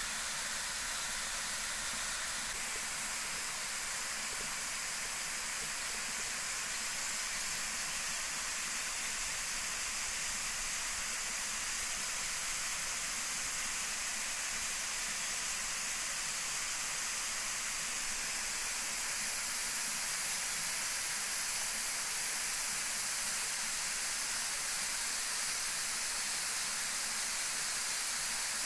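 A waterfall's rushing water: a steady, even hiss.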